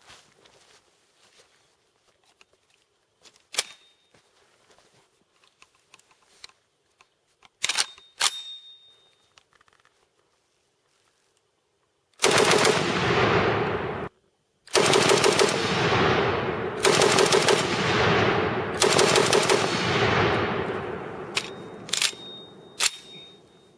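Breda Model 30 light machine gun in 6.5 mm Carcano firing: a burst of about two seconds, then after a brief pause a longer run of fire lasting several seconds, with echo dying away. A few sharp clicks come before the firing and again near the end.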